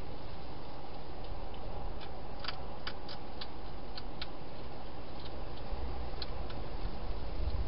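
Wild hedgehog eating from a dish: a run of sharp crunching clicks, bunched about two to four seconds in with a few more later, over a steady hiss.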